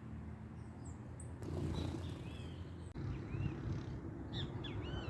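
Birds chirping: a couple of faint high chirps, then from about a second and a half in a busy run of short, arched chirps, over a steady low rumble.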